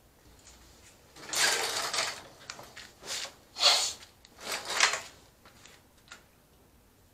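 A run of short rustling, knocking handling noises as a person sits down on a shop stool and handles a new plastic funnel, the loudest a bit after the middle.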